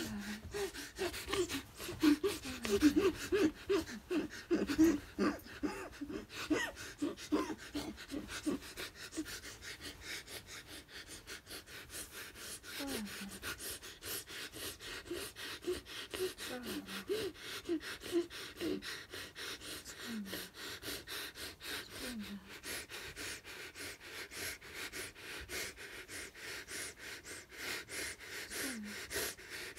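A woman's rhythmic gasping grunts during a seizure, about three a second, for the first eight seconds or so. They give way to heavy breathing, broken every few seconds by short moans that fall in pitch.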